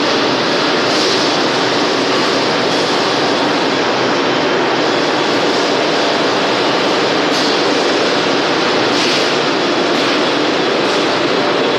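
Steady, loud machine din on a plastic-bottle blow-moulding production floor, with several short hisses of air breaking through it.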